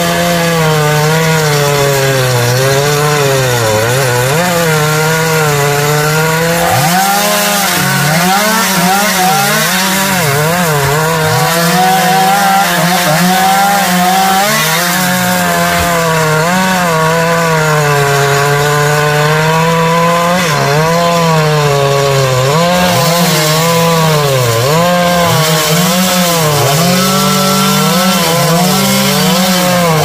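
Gasoline chainsaw running under load as it cuts into African mahogany wood. Its engine pitch dips again and again as the chain bogs in the cut, then picks back up.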